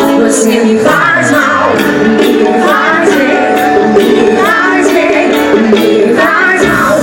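Live forró band playing a song with a singer's voice carrying the melody over a steady beat.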